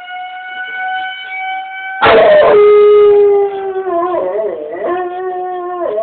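Dog howling along with a fire siren. The siren's steady, slowly rising tone sounds first; about two seconds in, a much louder howl starts, holds one pitch, then wavers up and down.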